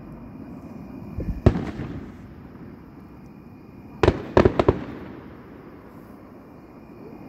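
Fireworks going off out of sight: a single bang about a second and a half in, then a quick run of four or five bangs around four seconds in, each trailing off in a rumbling echo.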